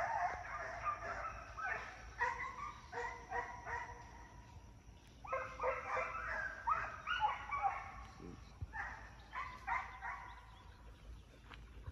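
Young foxhounds baying in chorus: overlapping long, pitched bawls in bursts, with a lull about four seconds in before they pick up again. It is the cry of hounds running game on the trail.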